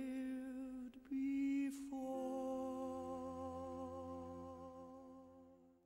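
Closing music: a long held note, briefly broken about a second in, then a fuller sustained chord from about two seconds in that slowly fades out at the end.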